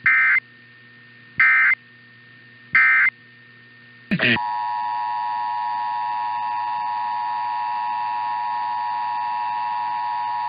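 Three short bursts of Emergency Alert System digital data warble, about 1.4 s apart, the end-of-message code that closes a test. About four seconds in it switches abruptly to the steady two-tone EAS attention signal.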